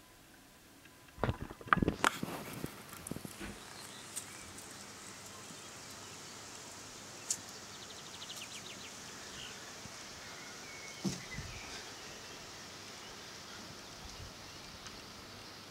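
A quick cluster of sharp knocks and scuffs in the first few seconds, then steady outdoor background noise with a short rapid trill of ticks partway through and a single knock later.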